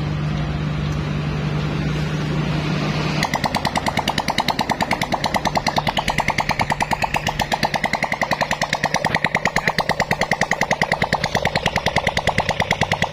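Rebuilt Honda Supra single-cylinder four-stroke motorcycle engine running with no exhaust fitted. About three seconds in, a steady hum gives way to a fast, even popping of open-port firing pulses, roughly ten a second.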